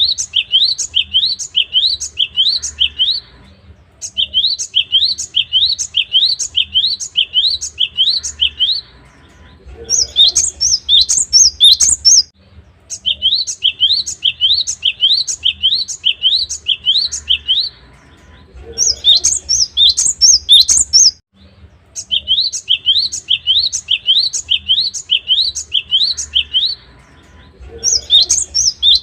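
Gelatik batu (cinereous tit) singing: phrases of quick, rising whistled notes, about four a second, each phrase lasting a few seconds with short pauses between. About every nine seconds there is a busier, higher-pitched phrase.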